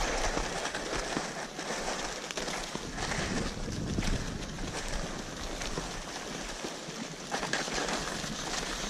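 Steady hiss and crunch of snow as reindeer-drawn wooden sleds and skis slide over it, with wind on the microphone.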